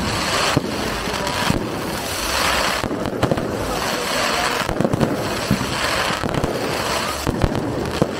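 Aerial fireworks launching and bursting overhead: a string of bangs, one every second or so, with crackling between them.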